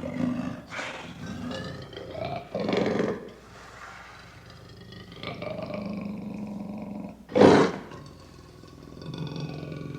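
Sound-effect roars: several short roars, the loudest about seven and a half seconds in, separated by stretches of a steady tonal hum.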